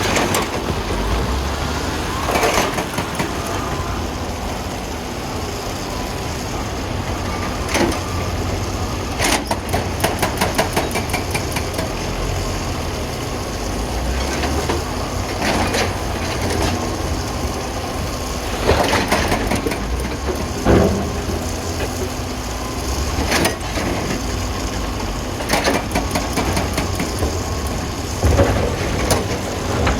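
Heavy wheel loader's diesel engine running steadily under load, with sharp knocks and clattering of rocks every few seconds as they are scooped and dumped, including a quick run of clicks about nine seconds in.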